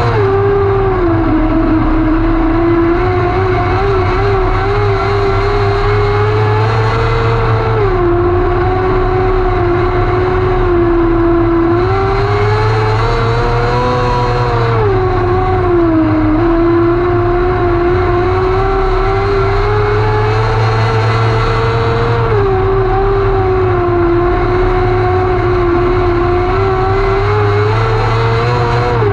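The 600cc motorcycle engine of a wingless micro sprint car at racing speed, heard from the cockpit. Its pitch climbs steadily for several seconds and then drops back sharply, four times, about every seven seconds, lap after lap.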